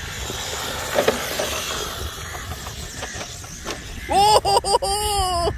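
Battery-powered (3S LiPo) hobby RC rock crawler driving across grass, a steady whirring hiss with a click about a second in. Near the end a person calls out once in a long voice that rises and falls.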